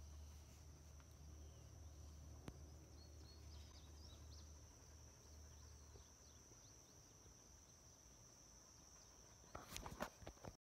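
Near silence with a faint, steady, high-pitched chorus of crickets. A few brief knocks sound near the end.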